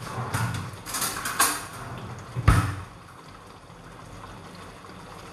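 Kitchen handling noises: a few rustles and utensil clatters, with a sharp knock about two and a half seconds in, then a steady faint hiss from the wok of sauce simmering on the gas burner.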